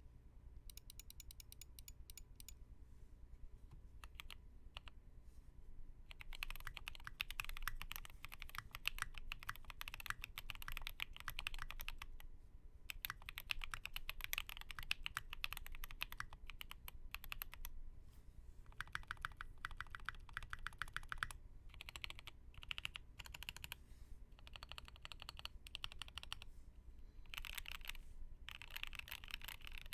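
Custom mechanical keyboard being typed on: SLA-printed case with a plateless Ketch PCB, stock 37 g Water King linear switches and SA-profile Dreameater keycaps. A few light keystrokes come first, then steady fast typing from about six seconds in, with brief pauses.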